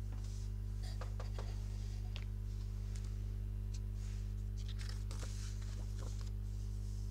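Paper rustling and small crackles as the pages of a large picture book are handled and turned, with a page turn near the end, over a steady low hum.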